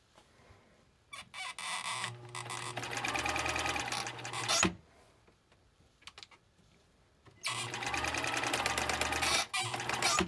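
Bernina Record 830 electronic sewing machine running with no fabric under the foot, in two runs of about three seconds each with a pause between. Each run starts with a few short stutters before settling into a fast, steady stitching rattle.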